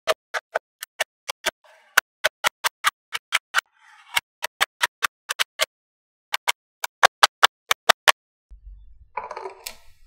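Small magnetic balls clicking together one by one, about thirty sharp clicks at a few per second with a short pause just after the midpoint. Near the end the clicks stop and a short rustling, handling noise follows.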